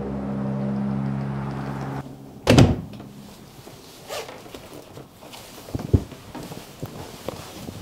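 Background music on a held chord that stops about two seconds in, followed by a heavy thump and, a few seconds later, a sharper knock, with a few small knocks between.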